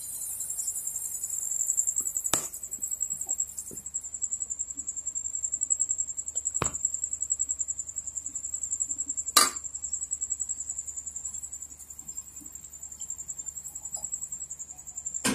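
A steady, high-pitched, rapidly pulsing insect trill, with a few sharp knocks about two, seven and nine seconds in.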